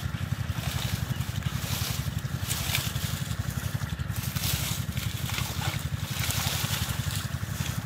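Water hyacinth being pulled by hand from shallow muddy water: leaves rustling and water sloshing in short irregular bursts. Under it runs a steady low engine drone with a rapid, even pulse.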